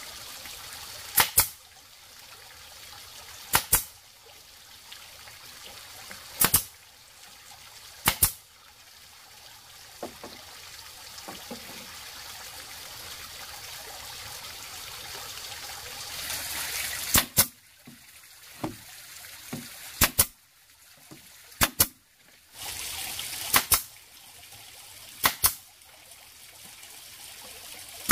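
Pneumatic nail gun firing nails into a wooden frame: about nine sharp double clacks every two or three seconds, with a pause in the middle, over a steady background hiss.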